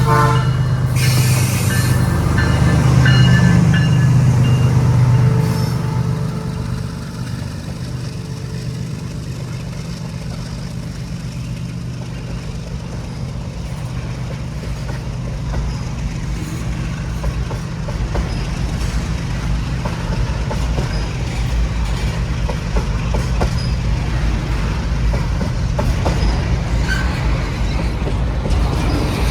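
Diesel locomotive engine running hard under load as a train climbs a grade, loud for the first five seconds or so. About six seconds in it drops to a lower steady rumble as the train keeps rolling.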